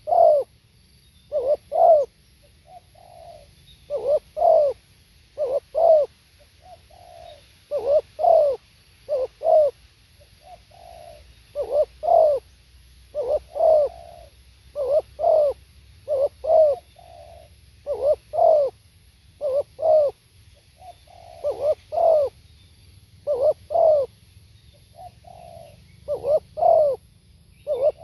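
Spotted dove cooing over and over. Each phrase is a soft low note followed by two louder coos, repeated about every one and a half to two seconds.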